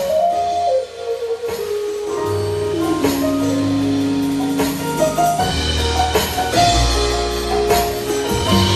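Live band playing: keyboard chords and a falling sliding keyboard line over electric bass and drum kit, with the bass and drums getting heavier about two seconds in.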